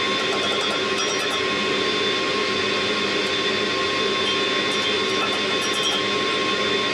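Two-burner gas forge running, a steady even roar of the burners.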